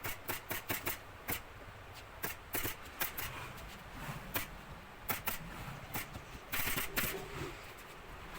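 A series of sharp clicks in quick, irregular runs with short pauses between them. A longer hiss comes about two-thirds of the way in.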